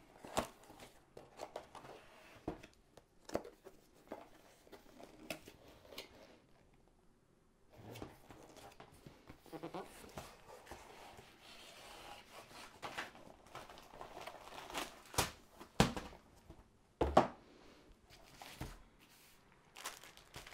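Hands opening a cardboard kit box and pulling out plastic-wrapped contents: cardboard scraping and tapping, plastic packaging crinkling, and a run of sharp knocks, the loudest about fifteen to seventeen seconds in.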